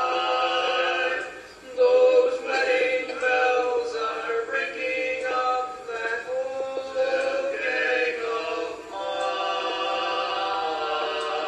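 Men singing barbershop harmony a cappella: a held close-harmony chord, a brief break, then phrases of sustained chords.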